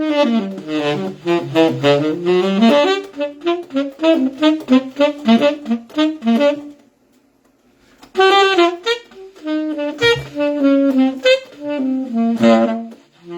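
Saxophone playing two runs of short notes with a pause of about a second between them, the volume swelling and dropping from note to note: a demonstration of phrasing with swing through dynamics.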